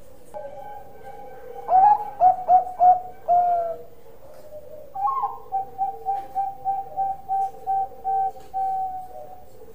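Zebra dove (Bangkok-type perkutut) cooing: a burst of about five loud, clipped coos, then after a short pause a sharp note and a long, even run of about a dozen quick coos.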